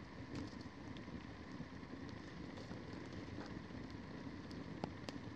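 Wood campfire crackling steadily, with scattered sharp pops over a low hiss.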